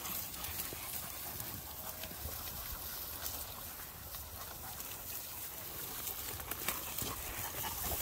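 A pack of hunting dogs and people scrambling up a rocky, brushy slope: paws and feet clicking and scraping on loose stones, with brush rustling. The clicks are scattered and grow more frequent near the end.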